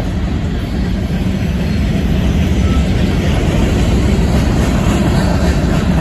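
Union Pacific freight train rolling past, a steady rumble of wheels on rail that grows a little louder, with wind buffeting the microphone.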